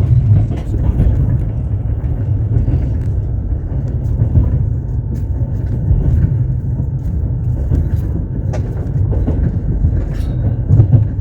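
Passenger train running along the track, heard from aboard the train. A steady low rumble of the wheels with scattered light clicks and rattles.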